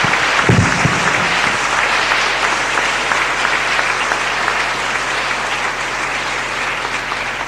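Audience applauding, steady dense clapping that eases slightly near the end.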